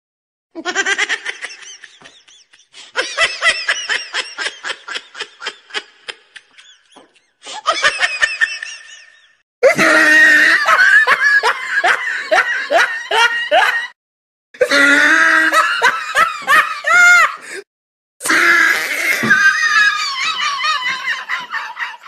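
Laughter sound effects: about six separate clips of people laughing, cut together one after another with brief silences between. The clips from about ten seconds in are louder than the first three.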